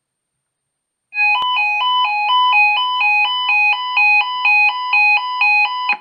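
Weather alert radio receiver sounding its electronic alert chime for a received required weekly test: two-note tones alternating quickly, about five changes a second, starting about a second in and stopping at the end.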